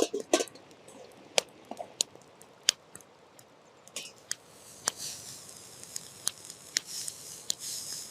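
Food being prepared by hand: irregular sharp clicks and knocks of utensils and dishes being handled, with a faint hiss joining about five seconds in.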